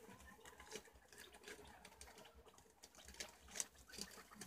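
Wild cavies (preás) nibbling and chewing leafy greens: faint, irregular crisp clicks and rustles, the loudest about three and a half seconds in.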